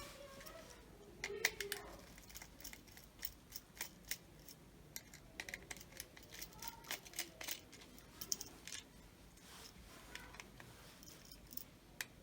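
Faint, irregular sharp clicks and snaps of a plastic multi-plug power strip and its wiring being handled and worked on by hand.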